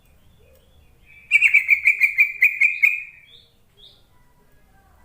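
Yellow-vented bulbul (trucuk) call: a rapid bubbling run of about a dozen notes lasting roughly two seconds, starting a little over a second in, followed by two faint short high chips.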